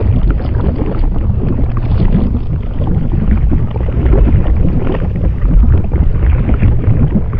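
Baking soda and vinegar foaming over a model volcano: a loud, continuous low rumbling and crackling fizz, the sign of the reaction in full eruption.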